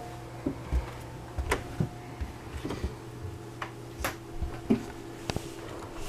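Footsteps on an RV floor with camera handling: soft thumps every half second to a second and a few sharp clicks, over a faint steady hum.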